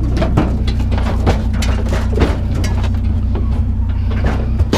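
Sheet-metal pieces of a broken-down barbecue grill clanking and rattling in a series of short knocks as they are handled, over a steady low engine hum.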